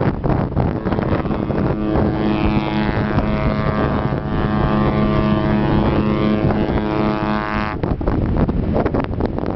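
AIDAaura cruise ship's horn sounding one long, steady blast of about six seconds, starting about two seconds in, with wind buffeting the microphone throughout.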